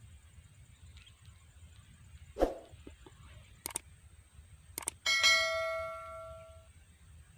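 A dull knock, two sharp clicks, then one loud bell-like metallic ring about five seconds in that fades away over about a second and a half.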